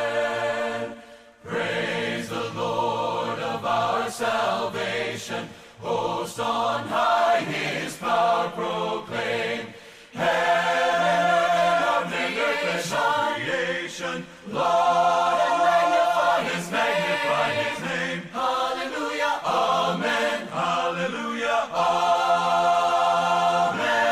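Choir singing a hymn, phrases of held notes with brief breaks between them.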